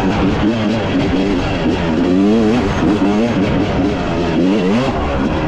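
Off-road vehicle engine running under throttle, its pitch rising and falling repeatedly as it is revved and eased off.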